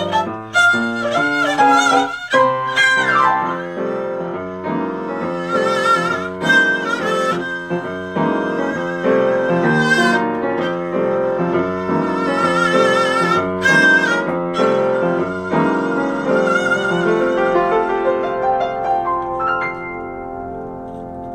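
Live classical chamber music: a sustained melody played with vibrato over piano-like chordal accompaniment, growing quieter near the end.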